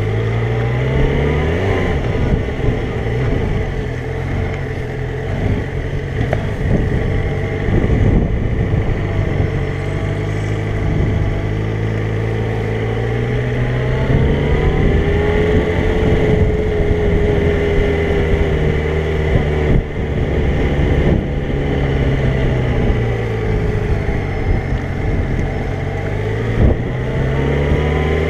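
Motorcycle engine running under the rider, its pitch rising and falling several times as the bike speeds up and slows.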